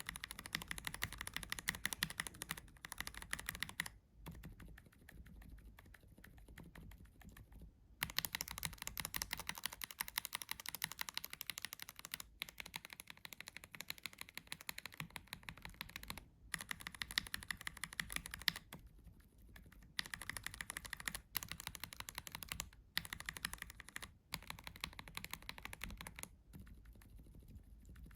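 Fast typing on a KBD67 Lite R3 mechanical keyboard with linear switches (Gateron Milky Yellow, Tangerine, Tourmaline Blue and Silent Alpaca under test): dense key clacks in runs of a few seconds with brief breaks, some runs much quieter than others.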